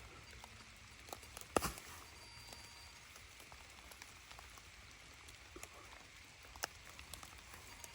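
Light rain falling, with scattered sharp drop ticks and a louder knock about one and a half seconds in.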